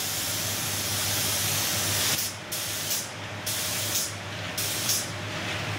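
Compressed-air spray gun hissing: one continuous spray for about two seconds, then four short bursts about a second apart. A steady low hum runs underneath.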